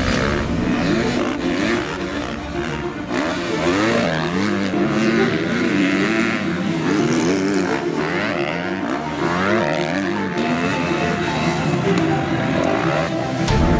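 Motocross bike engines revving, their pitch rising and falling again and again as the riders open and close the throttle and shift.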